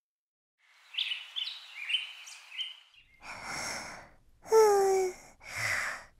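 A quick run of high chirping notes, then a cartoon character's voiced sleep breathing. A hushed in-breath alternates with a short sighing out-breath that falls in pitch, about twice in the last three seconds.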